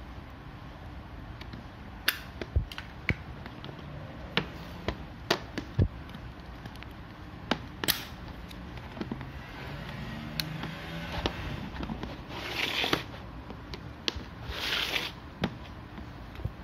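Sharp plastic clicks and knocks as plugs and a charger are handled and pulled from the three-pin sockets of plastic cable reel extensions, at irregular moments, with two short rubbing scuffs near the end.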